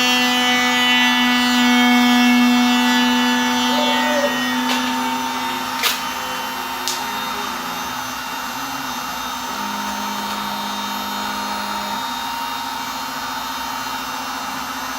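Home-built CNC router machining a test piece: the cutting spindle's steady whine and hum, with tones that step to new pitches a few times as the machine's motion changes, most clearly between about eight and twelve seconds in. Two short sharp clicks come around six and seven seconds in.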